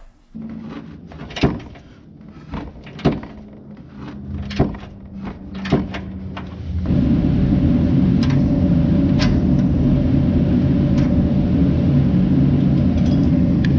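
Sharp metal clinks of tools and bolts as a bumper bracket is unbolted under a pickup's front end. About seven seconds in, a loud, steady machine starts running and carries on.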